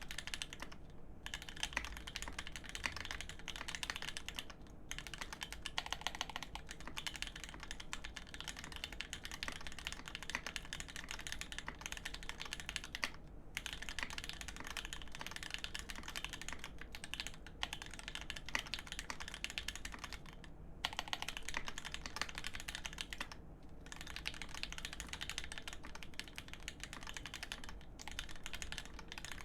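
Steady fast typing on a custom mechanical keyboard, a GEON F1-8X with an aluminium plate and lubed Telios v2 linear switches on 75 g springs, keystrokes running together with a few brief pauses.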